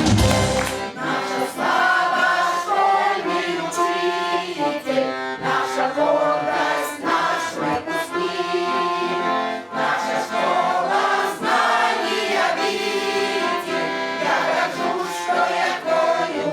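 Accordion music with a group of voices singing along: a song played through.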